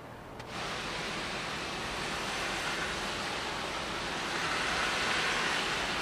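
Steady rushing noise, even and without pitch or rhythm, that starts abruptly about half a second in.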